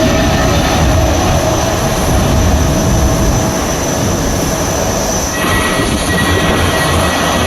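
Aircraft taking off: loud, steady engine roar with a high whine. About five seconds in, the whine drops abruptly to a lower pitch.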